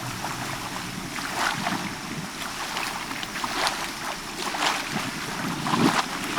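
Bay water lapping and splashing in small irregular washes, with wind rumbling on the microphone.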